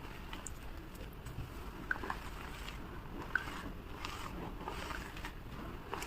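Block of gym chalk being crushed and crumbled, a continuous crunching full of small crackles with two sharper snaps about two and three and a half seconds in; the audio is sped up.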